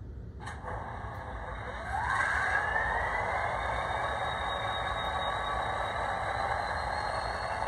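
Sound decoder in an HO scale model diesel locomotive playing an engine start-up through its small speaker: a click, then about two seconds in a rising whine that settles into a steady diesel running sound.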